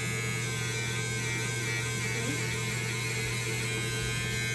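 Electric hair clippers buzzing steadily while trimming the hair at the nape of the neck.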